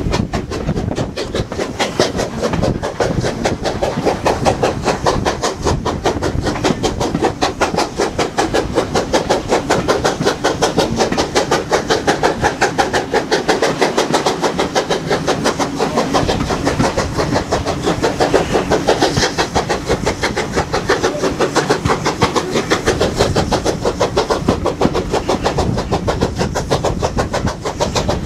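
Steam locomotive hauling the train, its exhaust beats making a fast, steady chuffing rhythm, mixed with the coaches running over the track.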